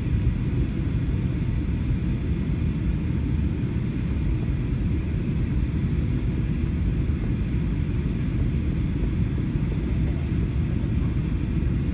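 Steady low cabin noise inside an Airbus A321 airliner descending on its approach to land.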